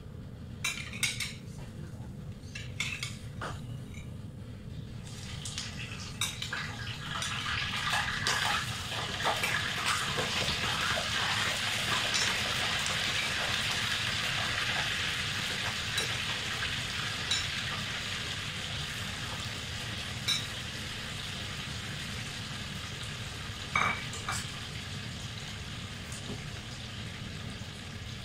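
Kofta meatballs frying in hot oil in a pan: a few metal clinks of a spoon on plate and pan at first, then the oil sizzles, building over several seconds as the meatballs go in and easing off later. Now and then a single clink of the utensil cuts through, the sharpest about three quarters of the way through.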